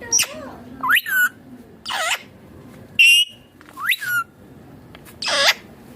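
Indian ringneck parakeet calling: about six short, loud, shrill calls roughly a second apart, some sweeping sharply upward in pitch and others dipping and rising again.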